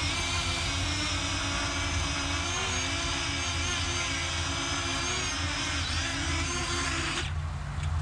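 Parrot Anafi quadcopter's rotors whining steadily, the pitch wavering as the motors adjust while the drone is flown manually. The higher whine stops shortly before the end.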